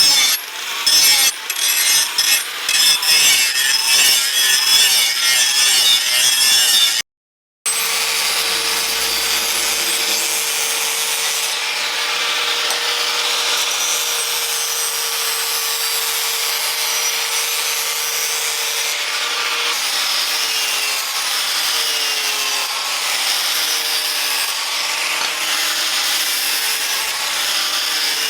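Wood being cut or rasped by hand with quick, even strokes. After a short break, a power tool runs steadily on wood, with a hum that dips slightly in pitch now and then.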